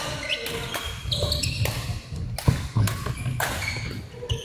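Badminton rally: sharp clicks of rackets striking the shuttlecock, the loudest about two and a half seconds in, with shoes squeaking briefly on the court and shuffling footsteps between shots.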